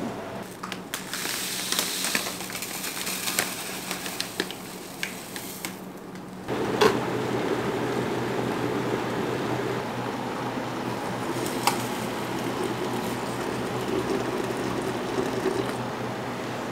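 Philips stainless steel electric kettle switched on with a sharp click about seven seconds in, then heating water with a steady low rushing hiss and hum. Before the click there is only a light hiss with a few small ticks.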